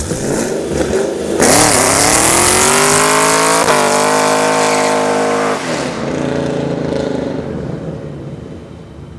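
A car engine revving up hard and holding at high revs for a few seconds, then dropping back and fading away.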